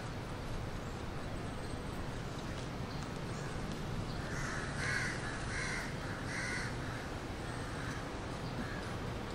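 A crow cawing three times in quick succession about halfway through, then twice more, more faintly, over a steady background hum.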